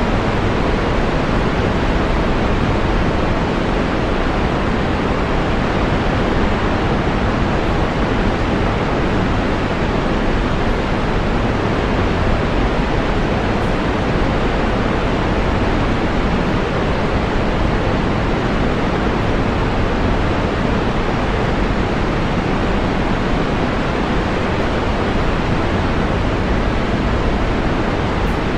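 Waterfall, its water rushing in a steady, unbroken roar with deep low rumble.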